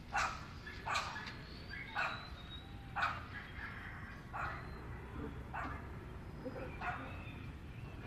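A dog barking repeatedly, about seven short barks roughly a second apart, over a steady low rumble.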